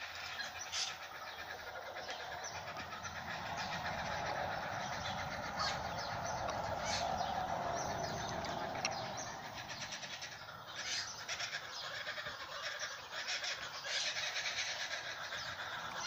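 A group of laughing kookaburras calling in a continuous, rapid cackling chatter, agitated and mobbing a goshawk perched in their tree. A lower rushing hum swells and fades in the middle.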